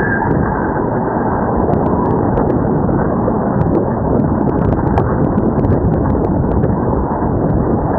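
Steady road and wind noise from a moving vehicle at speed, with other traffic passing close alongside.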